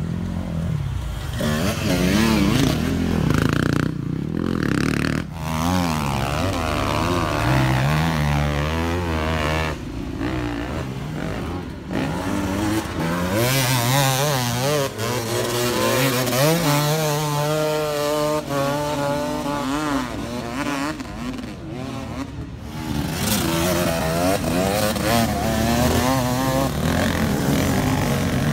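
Enduro dirt bike engines revving hard under load on steep climbs, their pitch rising and falling again and again with the throttle.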